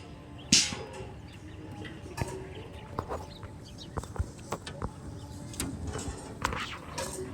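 A short, loud scraping burst about half a second in, followed by scattered light knocks and clicks.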